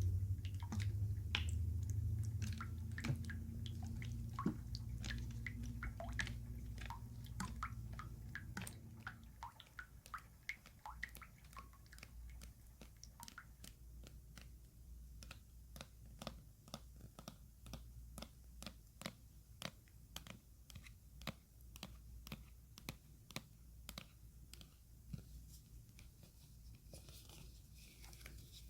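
Close-miked ASMR water sounds: a steady run of small wet clicks and squishes. A low steady sound underneath stops about nine seconds in, leaving only the soft clicks.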